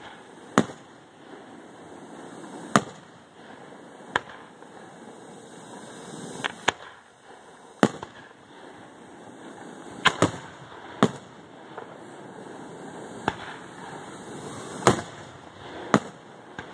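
Aerial firework shells bursting: about a dozen sharp bangs at irregular intervals, some in quick pairs, over a steady background hiss.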